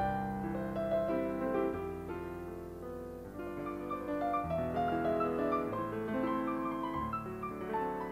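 Solo piano playing a piece in which held bass notes, changing every two seconds or so, sit under sustained chords and a melody line.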